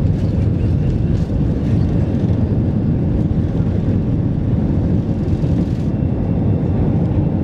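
Airbus A320 at takeoff thrust, heard from inside the cabin over the wing: a loud, steady rumble of the engines and the wheels on the runway, through rotation and liftoff. About six seconds in, the higher hiss thins out as the wheels leave the ground.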